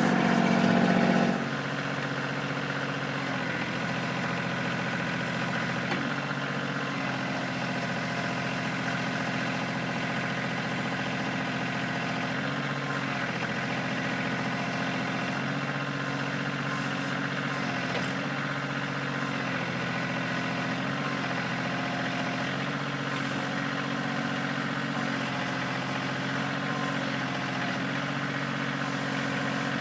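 Kioti CK2610 compact tractor's three-cylinder diesel engine running steadily. It is louder for about the first second, then settles to an even run.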